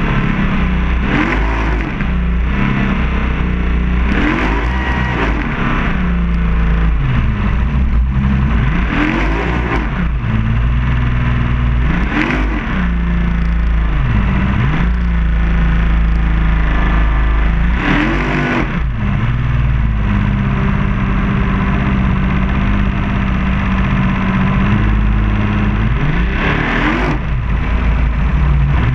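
Racing powerboat's engine running hard at speed. The revs swing up and down in quick swoops every second or two.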